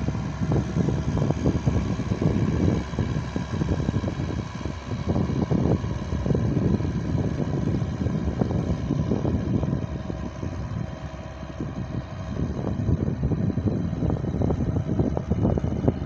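Farm tractor's engine running steadily under load as it pulls a plough, with gusts of wind rumbling on the microphone.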